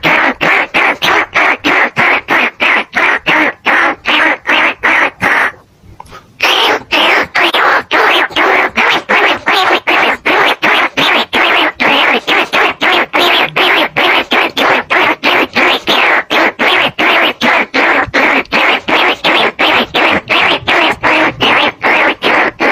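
Rat-lure call: rapid, evenly repeated squeaking chirps of rats, used to draw bandicoot rats and field rats to hunters and traps. The chirps are loud, come about four or five a second, and break off briefly about five and a half seconds in.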